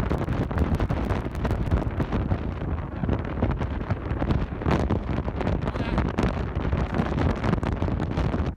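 Strong wind buffeting the microphone, a loud, rough rumble that rises and falls in gusts.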